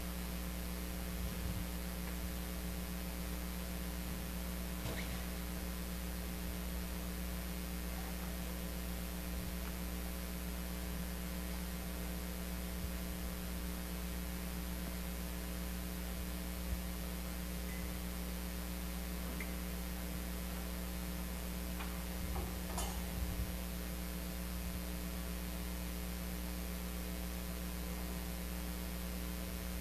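Steady electrical mains hum and hiss from the sound system, with a few faint brief knocks about five seconds in and again around twenty-two seconds in.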